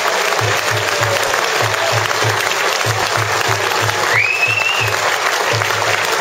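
Stadium crowd applauding and cheering a home run as the batter rounds the bases, with a low rhythmic thumping of about three beats a second under the clapping. About four seconds in, a single call rises sharply and then holds.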